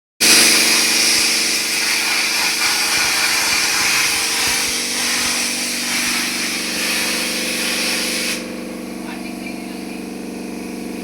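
Plasma cutter cutting: a loud, steady hiss of the arc and air over the machine's hum, which stops suddenly about eight seconds in, leaving only the steady hum of the machine.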